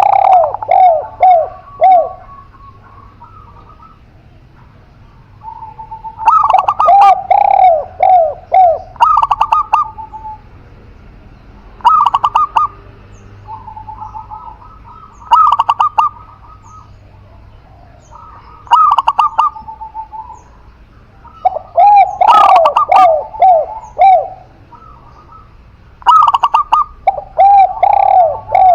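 Captive spotted dove and zebra dove cooing in bouts every few seconds. Each bout is a quick run of rolling, repeated coo notes, with short pauses between.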